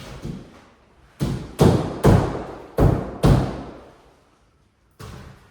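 Five heavy thuds of timber being knocked into place, each ringing on in a hollow, echoing room. The blows fall about a second in, in two groups, and a softer knock comes near the end.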